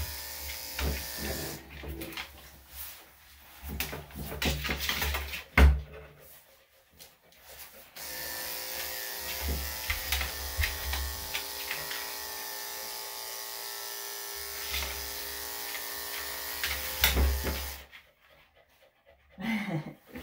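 Electric dog-grooming clippers with a #5 blade running with a steady hum as they cut through the dog's coat, with scattered small clicks. The hum stops for a moment about six seconds in and again near the end. A dog pants.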